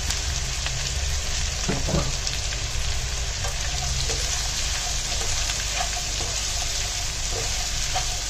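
Chopped onions sizzling in hot coconut oil in a nonstick frying pan while a slotted spatula stirs them. The sizzle is a steady hiss.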